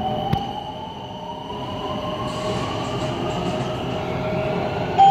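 BTS SkyTrain car running on the elevated line, its traction motors whining in a tone that rises steadily in pitch as the train gathers speed, over the constant rumble of the car. Right at the end a loud steady chime tone begins, the on-board signal that a station announcement is about to play.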